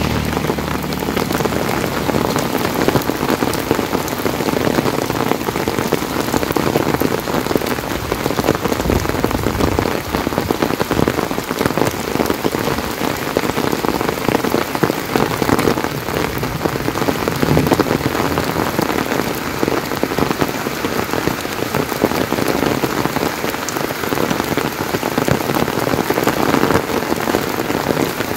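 Heavy rain falling steadily: a dense, unbroken hiss of countless drops striking surfaces.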